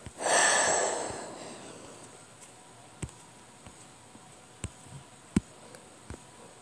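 A breathy exhale that fades over about a second and a half, then a few faint, sharp taps of a stylus or fingertip on a tablet screen while drawing.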